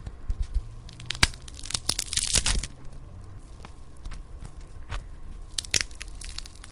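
Cartoon sound effect made of scattered sharp clicks and crackles, with a dense crackling burst about two seconds in and a few more short crackles near the end.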